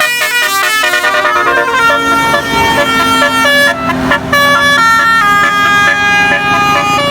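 Tour bus's multi-tone telolet horn playing a melody: a quick run of short notes, then longer held notes stepping up and down in pitch.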